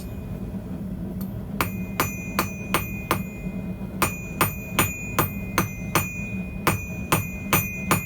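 Hammer blows forging a small rod on a small Chinese bread loaf anvil: a regular run of strikes, about two and a half a second, starting about a second and a half in with a short pause near the middle. The anvil is really loud, ringing with a high tone between the blows.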